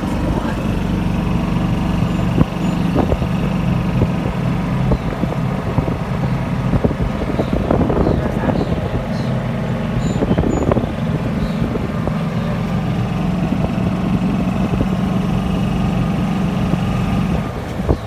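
Golf cart driving along a paved road: a steady motor hum with a few knocks along the way.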